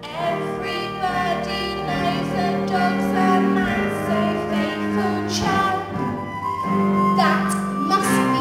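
A song from a stage play's score: voices singing a melody over instrumental accompaniment.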